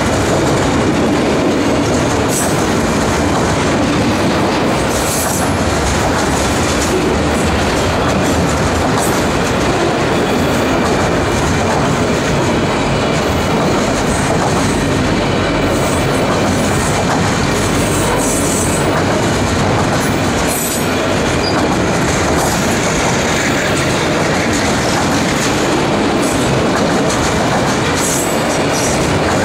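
Loaded autorack freight cars rolling past at close range: a loud, steady rumble of steel wheels on rail, broken by scattered sharp clicks and rattles.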